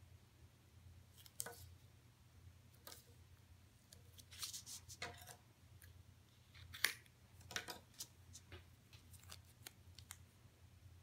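Double-sided tape being pulled off its roll and snipped with scissors over cardstock: faint, scattered snips and rustles, the sharpest about seven seconds in.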